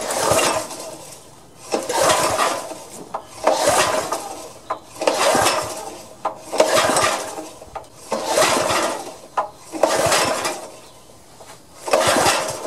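Recoil starter of the compressor's Honda engine pulled eight times in a row, about every one and a half seconds: each pull is a rasping rush of the rope and the engine turning over without catching, a no-start.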